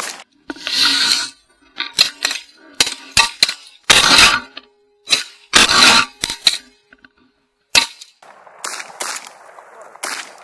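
Shotguns of several hunters firing a rapid, ragged volley at incoming geese: about a dozen sharp blasts over some eight seconds, thinning out toward the end.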